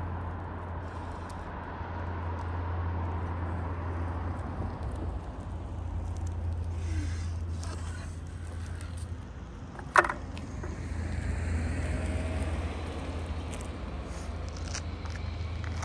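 Segway Ninebot G2D electric scooter rolling over asphalt against a steady low outdoor rumble. One sharp metallic click about ten seconds in, as the scooter's kickstand snaps down.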